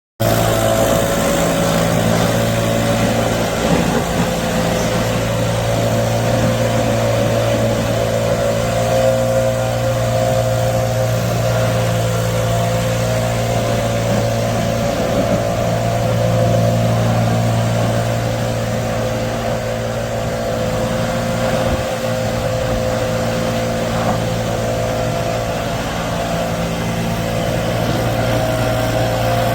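A motor running steadily at a constant speed, with a low hum and a steady mid-pitched drone.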